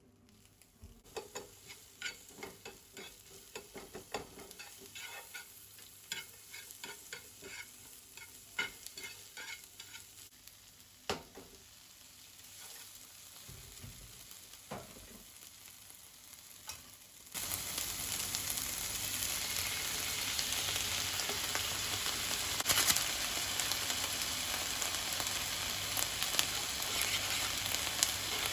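Kitchen cooking sounds: light clicking and tapping of utensils for the first two-thirds, then, abruptly, a steady loud sizzle as food goes into a hot frying pan and keeps frying, with a few sharper crackles on top.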